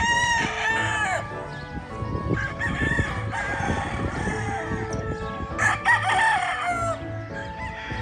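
Gamefowl roosters crowing: one crow right at the start, ending on a falling note, and another about six seconds in.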